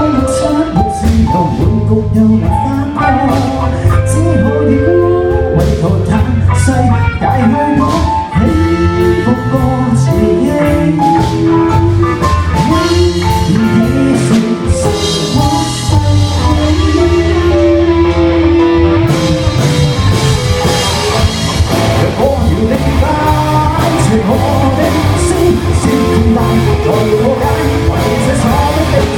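A live band playing a song: a singer over guitar and drum kit.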